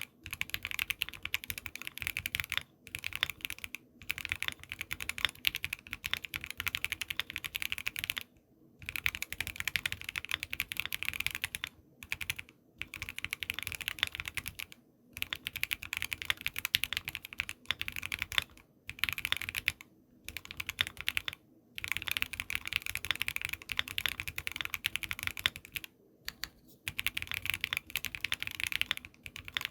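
Continuous fast typing on a Voice65% mechanical keyboard with a polycarbonate plate, stock factory-lubed Everglide V3 Water King switches and Infinikey keycaps. The keystrokes come in long runs broken by brief pauses of under a second, about a dozen times.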